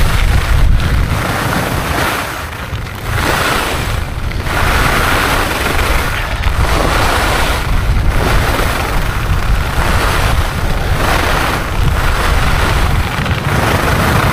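Wind buffeting a helmet-mounted camera's microphone at speed, over the hiss of skis carving on snow that swells and fades about every one and a half seconds with each turn.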